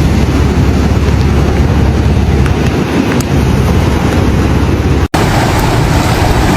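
Loud, steady rushing of floodwater mixed with wind buffeting the microphone. It cuts out for an instant about five seconds in, then the same kind of rushing noise resumes.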